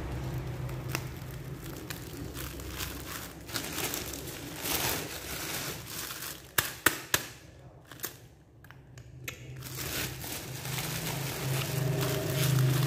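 Plastic snack packaging crinkling and rustling as it is handled, with sharp clicks and taps, a few loud ones together a little past the middle.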